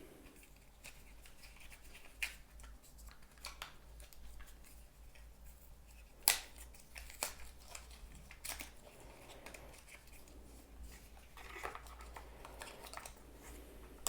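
Faint handling of packaging while a watch charger is taken out of its box: a handful of sharp clicks and taps, spaced a second or more apart, with a soft rustle near the end.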